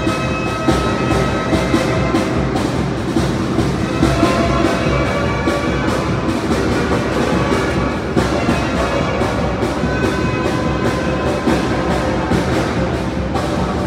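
Tamborazo brass band music: brass instruments playing a tune over a steady, regular drum beat.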